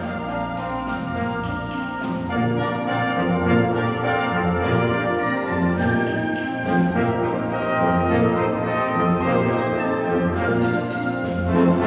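Symphony orchestra playing a Hanukkah medley live, full ensemble, swelling louder near the end.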